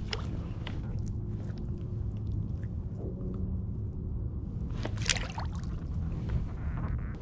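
Shallow bay water sloshing and lapping under a steady low rumble, with a splash about five seconds in as a small flounder is released back into the water.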